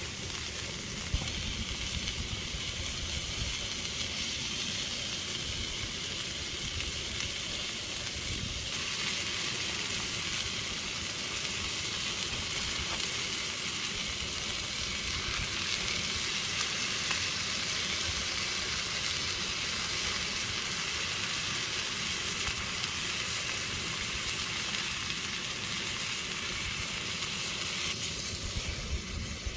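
Chicken pieces and peppers frying in a small stainless steel pan on a gas canister camping stove: a steady sizzle that grows fuller about nine seconds in.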